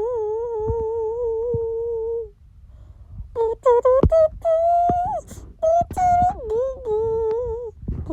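A high voice humming a tune without words: one long held note with a slight wobble, a short pause, then a string of short notes stepping up and down.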